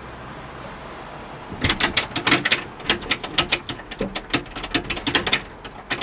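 Rapid, insistent knocking on a front door with glass panels, a fast, uneven run of sharp raps several a second. It starts about one and a half seconds in and stops just before the end.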